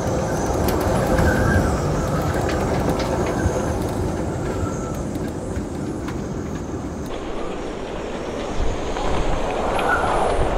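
Storm-force wind around a moored sailboat, gusting at roughly 40 to 75 knots: a loud, continuous rush with a faint whistle from the rigging. It eases slightly in the middle and builds again near the end.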